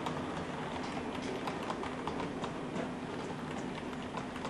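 HO-scale model train running on the layout: irregular light clicking of small wheels over rail joints and points, over a steady low hum.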